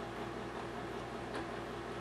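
Small handling noise from a Honda generator's fuel sediment cup being fitted back onto the fuel valve, with a single faint click a little over a second in, over a steady low background hum.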